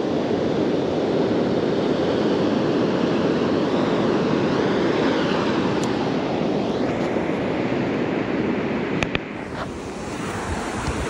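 Surf breaking on the beach with wind on the microphone: a steady rushing noise. About nine seconds in there are two sharp clicks, and after them the rushing is quieter.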